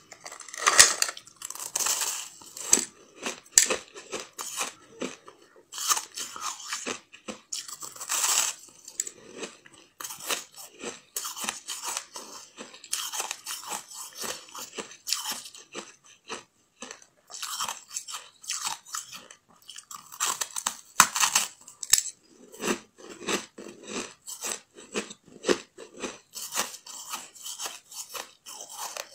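Biting and chewing pieces of hard ice shaped like steamed buns, made by packing and freezing without water, close to the microphone: a steady stream of crisp crunches and crackles, with a few louder bite crunches and a duller, lower chewing stretch after about 22 seconds.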